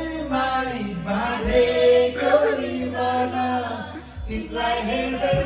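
Several voices singing a song together, with one singer on a handheld microphone, holding long sung notes.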